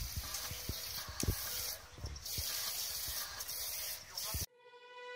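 A thin jet of water splashing into a metal fountain bowl: a steady hissing spatter, with a few low thumps. It cuts off suddenly about four and a half seconds in, and music with held tones begins.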